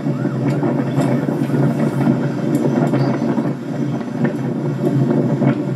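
A vehicle driving along a road: steady engine and road noise, with faint calls and whistles from people at the roadside.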